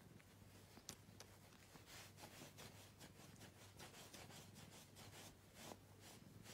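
Faint, soft rustling of a hand rubbing a cat's belly fur and the cotton bed sheet beneath it, in quick irregular strokes over a low steady hum.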